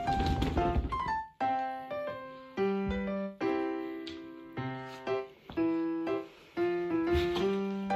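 Background piano music: a light melody of single notes that strike and fade, one after another.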